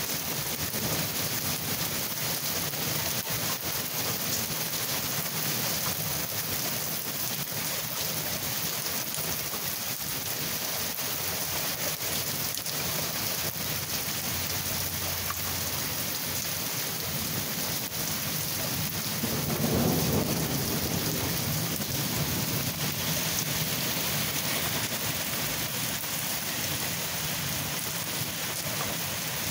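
Steady rain hissing throughout, with a low rumble of thunder swelling up about two-thirds of the way through.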